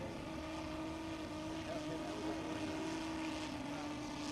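Quarter-scale model Bentley BR2 nine-cylinder rotary aero engine running steadily in flight, a smooth even drone.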